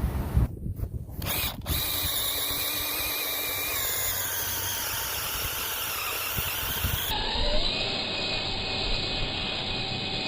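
A handheld electric power tool running steadily, its motor whine drifting slowly in pitch.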